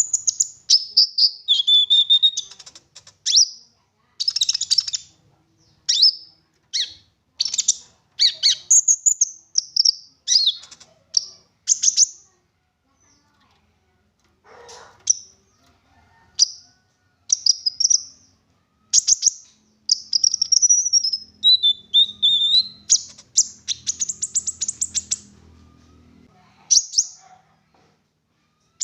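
A konin songbird singing rapid bright chirps and whistled, gliding phrases laced with mimicked calls of other birds, delivered in bursts of a second or two with short gaps and a brief lull about halfway through.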